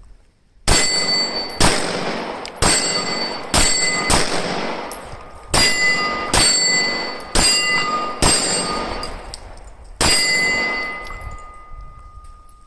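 Sig Sauer P320 X Carry pistol being fired, about ten shots at an uneven pace with pauses of about half a second to a second and a half between them. Each shot is followed by a metallic ringing that lingers, longest after the last shot.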